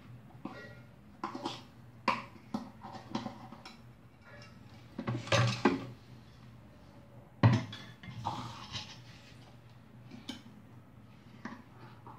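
A spoon knocking and scraping inside a stainless steel mixer-grinder jar as ground urad dal batter is scooped out, with irregular metal clinks. The loudest knocks come about five seconds in and again at seven and a half seconds, over a faint low hum.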